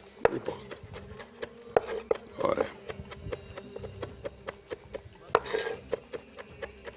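Kitchen knife chopping on a wooden cutting board in quick, regular strokes, about four or five a second. A fork scrapes and stirs in a glass bowl twice, briefly, about two and a half and five and a half seconds in.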